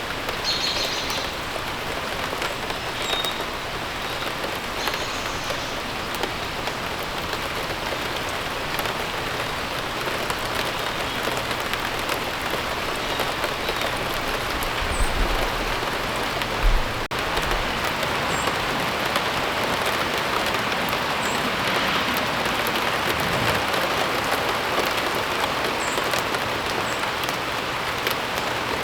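Steady rain falling and pattering on surfaces, with a few faint short bird chirps and a couple of low thumps about halfway through.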